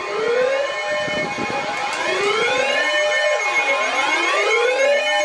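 Several sirens wailing at once, their pitch sweeping up and down about once a second over steady tones.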